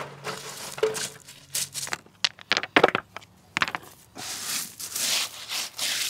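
Small gravel and cobble stones being scattered and pressed into place by hand: irregular clicks and rattles of stone on stone, with a longer gritty scrape near the end.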